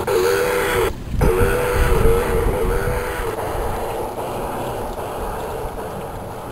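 G-scale model train cars rolling past on outdoor garden-railway track, with wind on the microphone. A wavering two-note tone rides over the rolling noise and stops about three seconds in, and the sound drops out for a moment about a second in. The noise grows fainter as the last cars go by.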